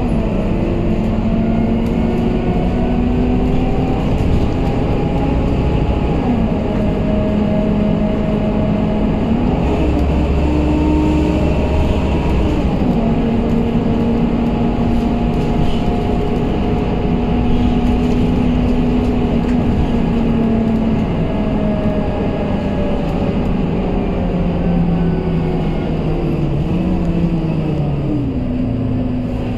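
Scania K230UB city bus's five-cylinder diesel engine and drivetrain heard from inside the passenger cabin while the bus is under way. The engine note climbs and then drops back in steps several times as the automatic gearbox changes gear, and it falls away near the end as the bus slows.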